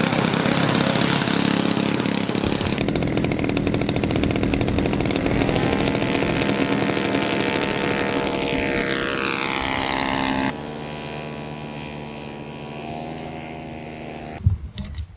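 Engine and propeller of a radio-controlled scale Piper Cub running at full throttle on the takeoff roll, the pitch rising about five seconds in as it picks up speed. After about ten seconds the level drops abruptly to a fainter steady drone as the plane climbs away, and a single thump comes near the end.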